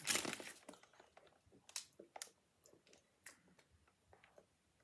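Faint crinkling of a crisp packet that dies away within the first second, then a few scattered soft clicks.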